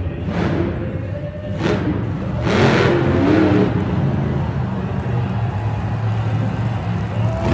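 Monster truck's supercharged V8 engine revving hard in repeated surges, rising and falling in pitch, as the truck stands up on its rear wheels.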